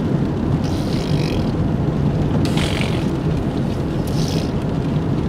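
Car in motion: a steady low rumble of engine and road noise, with a few brief hissy swells.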